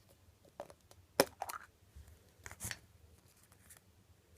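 Toy blind-bag packaging being torn open and handled by hand: a few short crinkles and rips, the sharpest about a second in.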